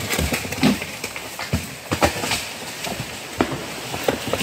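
Someone moving through dry leaves and undergrowth while carrying the camera: irregular rustling with many sharp crackles and knocks.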